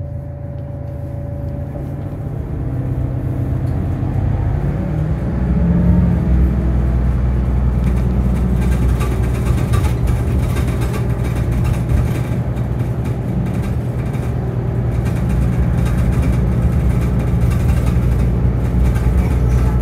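Inside the cabin of a 2009 New Flyer DE60LFR articulated hybrid bus, its Cummins ISL diesel and Allison EP50 hybrid drive accelerate. A rising whine sits over the engine drone for the first few seconds as the sound grows louder. The bus then runs at a steady, even drone.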